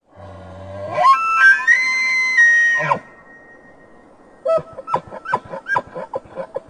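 Bull elk bugling: a low call rises into a high, held whistle for about two seconds, then cuts off. About a second and a half later comes a quick run of about ten short grunting chuckles.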